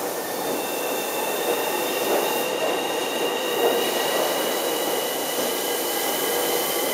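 Tobu 30000 series electric train moving past along a curved platform. Its running noise is steady, with a high, thin squeal over it that holds and rises slightly in pitch.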